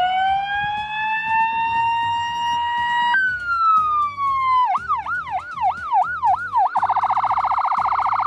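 Ambulance's electronic siren cycling through its tones. A long wail rises and holds, then glides down. About halfway through it switches to a fast yelp of about three up-and-down sweeps a second, and about two seconds later to a much faster rapid-fire warble.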